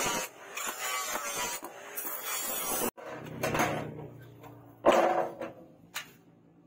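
Two hammer blows on a steel knife blade resting on an anvil stake, about a second apart, the first loud and ringing. A low steady hum runs under them, and in the first few seconds there is a stretch of rough, dense noise.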